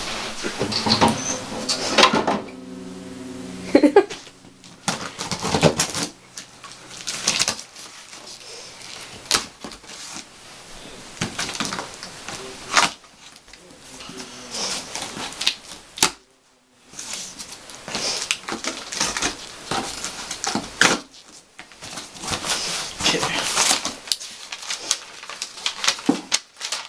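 A shipping box being unpacked by hand: cardboard and packing paper rustling and crinkling in irregular bursts, with scattered clicks and knocks.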